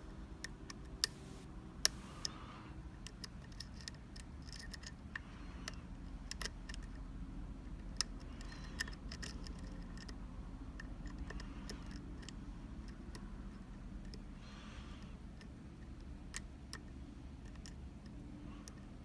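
Small metallic clicks and ticks of lock picks and tension tool working the pins of a Sargent Keso mortise cylinder, coming irregularly, with two louder clicks about one and two seconds in.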